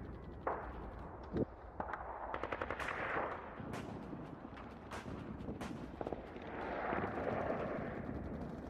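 Gunfire: rapid bursts of machine-gun fire mixed with single sharp shots, followed about seven seconds in by a swelling rush of noise that then fades.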